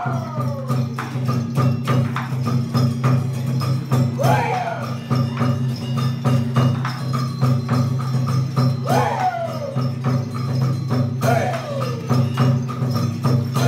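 Live traditional Vietnamese ensemble music: drum, wood block and cymbal strikes over a steady low drone. A sliding note falls in pitch four times, about every two to five seconds.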